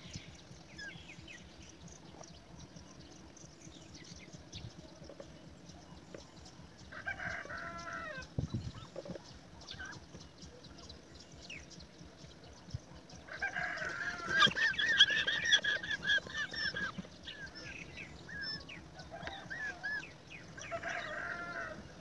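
Young European rollers calling from the nest cavity in bouts of repeated calls: a short bout about seven seconds in, a long, loud bout from about thirteen to seventeen seconds, and another near the end.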